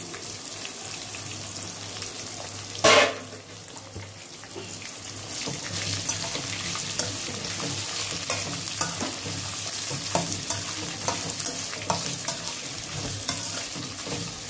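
Sliced onions sizzling in a hot oil tempering of mustard seeds, cumin and dals in a stainless steel kadai, with one short loud clank about three seconds in. From about five seconds in the frying gets louder, and a metal spoon scrapes and clicks against the pan as the onions are stirred.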